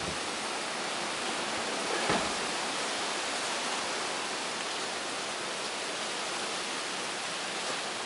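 Steady, even hiss of outdoor background noise, with one brief soft knock about two seconds in.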